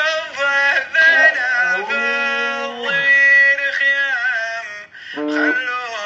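A song: a voice sings long, wavering, ornamented notes over musical backing, with a short break just before five seconds.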